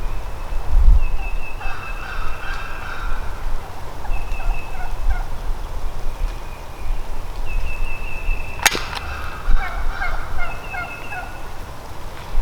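Eastern wild turkey gobbler gobbling close by, three rattling gobbles a few seconds apart. Strings of short, higher turkey notes run over them, and a sharp crack comes just before the last gobble.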